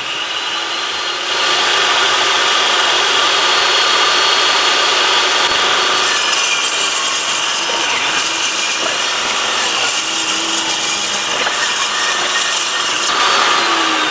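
Portable table saw running with its high motor whine while ripping through a sheet of plywood, the blade cutting steadily.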